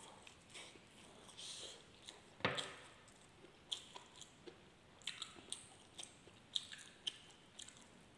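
Close-up mouth sounds of a man chewing a mouthful of rice and spicy milkfish sisig: soft, wet chewing broken by scattered sharp clicks, the loudest about two and a half seconds in.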